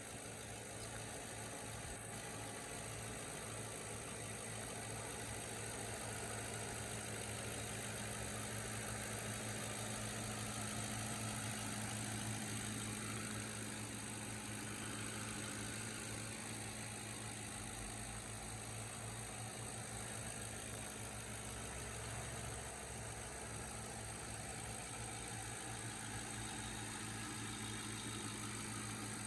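2010 Ford Crown Victoria Police Interceptor's 4.6-litre V8 idling steadily.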